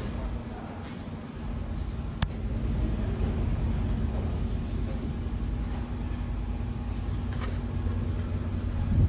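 A motor vehicle engine running steadily at an even pitch, with a single sharp click about two seconds in.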